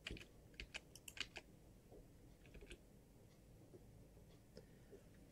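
Faint clicks of computer keyboard keys being pressed: a quick run of keystrokes in the first second and a half, then a few scattered presses.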